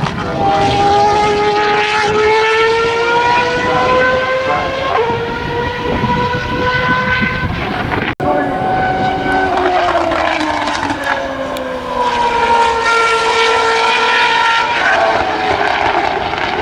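Zytek 3.4-litre V8 of an A1GP-derived two-seater formula car running hard. Its pitch climbs steadily with a gear change about five seconds in. After a sudden brief dropout, the pitch falls as the car slows, then climbs again near the end.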